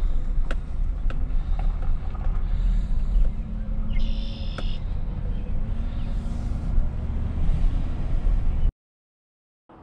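Vehicle driving heard from inside the cab: a steady deep rumble of engine and tyres, with a few sharp clicks and a brief high squeal about four seconds in. The sound cuts off abruptly about a second before the end.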